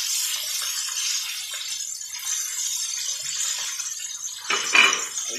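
Breaded chicken pieces deep-frying in a pan of oil, a steady high sizzle. Near the end there is a louder clink of metal tongs.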